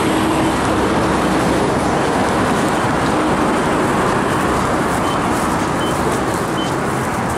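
Steady noise of road traffic passing on a multi-lane city street.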